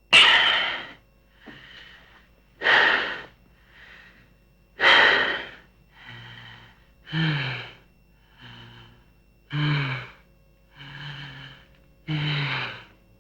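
Heavy breathing sound effect: a person panting in deep, rhythmic breaths, loud and soft breaths alternating about once a second. From midway on, the breaths become voiced, gasping moans.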